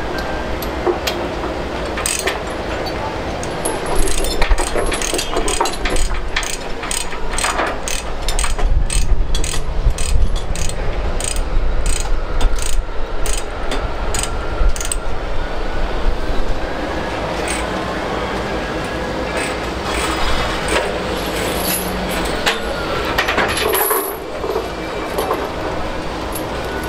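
Steel tie-down chains and binders being handled on a trailer: metallic clinking, with a run of quick clicks, several a second, from about four seconds in until about fifteen, then scattered clinks.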